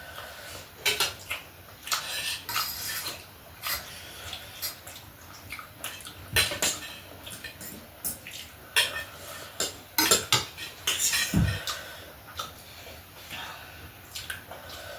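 Cutlery clinking and scraping against plates and bowls during a meal: irregular sharp clicks and knocks, coming in denser clusters about six seconds in and again around ten to eleven seconds in.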